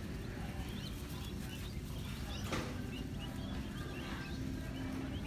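Baby chicks peeping in a store brooder: many short, high chirps scattered throughout, over a steady low hum. A single knock about halfway through.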